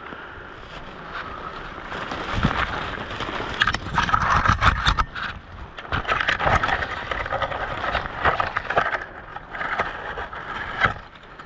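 Irregular scraping, rustling and knocking of a player moving with gear close to the microphone, with thumping steps among it.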